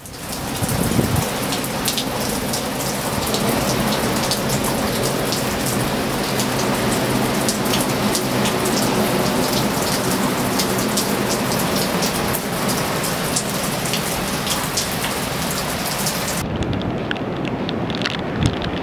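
Hurricane storm surf and wind: a steady, crackling roar of breaking waves with wind and spray hiss. About sixteen seconds in the high hiss drops away and the roar thins.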